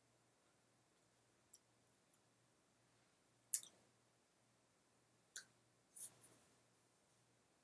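Near silence broken by a few short taps and clicks of hands meeting and brushing together while signing, the sharpest about three and a half seconds in and a cluster of softer ones near the end.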